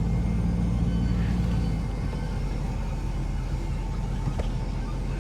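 Tow vehicle's engine running at low speed while maneuvering a trailer, a steady low hum that eases off about two seconds in.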